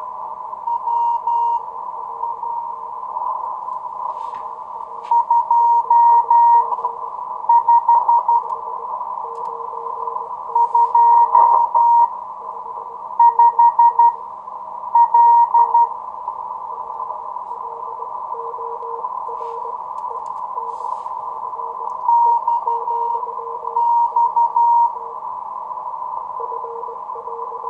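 Morse code (CW) signals heard in receiver audio on the 40 m amateur band through an Elecraft AF-1 audio filter: two stations keying at once at different pitches over steady band hiss, a louder higher tone in several bursts of dots and dashes and a fainter lower tone keying throughout. The overlapping signal is interference (QRM) from a strong station that has come up right next to the frequency of the much weaker station being worked.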